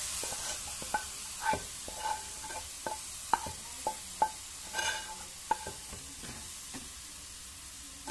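A spatula scraping and knocking the melted khoya-and-sugar mixture out of one metal pan into a kadhai, with ringing clinks about twice a second over a steady sizzle of desiccated coconut frying in ghee. The clinks thin out near the end.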